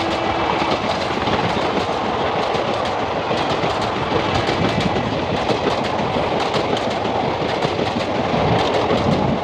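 Express train running at speed, its wheels clattering over the rail joints in a loud, steady, dense clickety-clack.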